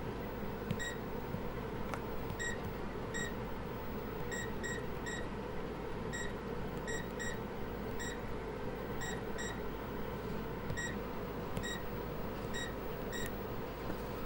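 Computer or server machine hum, steady, with about twenty short high electronic beeps coming irregularly, sometimes in quick pairs or triplets, and a few faint clicks.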